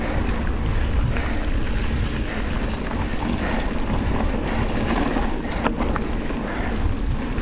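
Mountain bike riding fast down a dirt trail: a steady rumble of tyres and wind buffeting the camera microphone, with a few sharp knocks from the bike about two-thirds of the way through.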